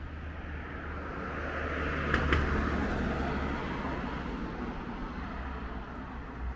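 A car passing by on the street, its tyre and engine noise swelling to a peak about two seconds in and then slowly fading away. A couple of sharp clicks come as it goes by.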